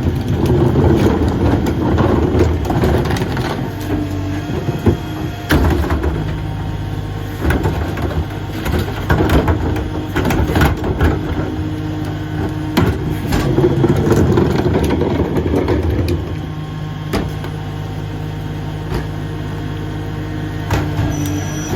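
Dennis Eagle rear-loader garbage truck working. Its engine runs under load with repeated metal clanks and bangs for about sixteen seconds, then settles to a steady idle.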